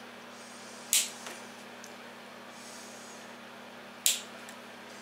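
Two sharp snips as hand cutters cut the tails off nylon cable ties, about three seconds apart.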